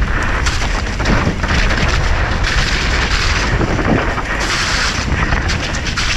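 Mountain bike descending a wet, muddy downhill trail at speed: wind buffeting the camera microphone over a constant low rumble, with tyres hissing through mud and puddles and the bike rattling and knocking over rough ground.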